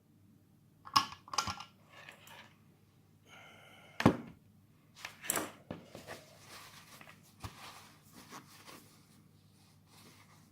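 Handling noises: a few light knocks and clicks of small objects being picked up and set down on a hard surface. The loudest knock comes about four seconds in.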